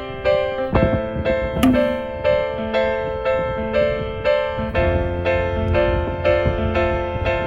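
Background music: a piano or electric-piano melody of evenly spaced notes, about two a second.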